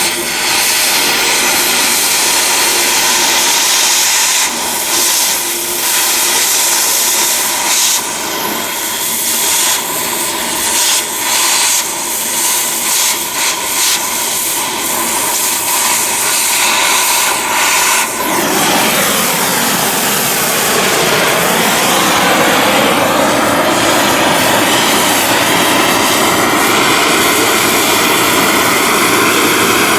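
Oxy-acetylene torch with a scarfing tip running as it gouges out old welds: a loud, steady hiss with brief dips. From about two thirds of the way in, an engine drone joins it, sinking in pitch and then slowly climbing again.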